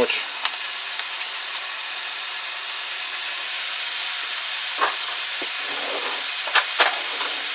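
Frozen minute-steak pieces sizzling in a hot cast-iron skillet: a steady hiss, with a few short pops in the second half.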